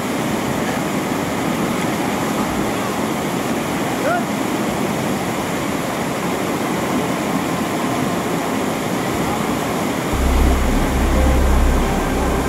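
Steady rushing roar of a large whitewater rapid, the churning water drowning out everything else. About ten seconds in, music with a deep bass comes in over it.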